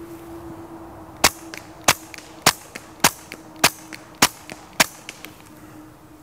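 Suppressed semi-automatic pistol fired seven times in steady succession, a little over half a second apart, each shot followed by a fainter click.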